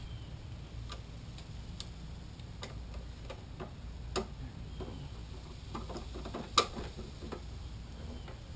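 Irregular light clicks and taps of metal parts and tools being handled during a mower wheel repair, with a sharper knock about six and a half seconds in, over a low steady hum.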